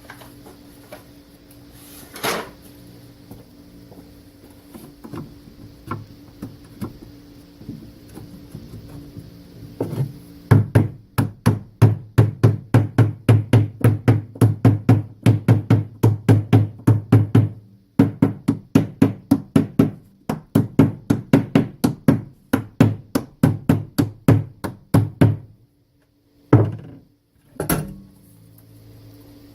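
Wooden Langstroth beehive frame parts being fastened together in an assembly jig: a fast, even run of sharp knocks, about three a second, starting about a third of the way in with a short break midway, and a few single knocks before and after.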